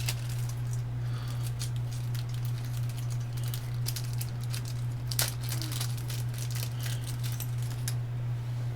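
Small clicks and rustles of component leads being handled and pushed into a solderless breadboard, with one sharper click about five seconds in, over a steady low electrical hum.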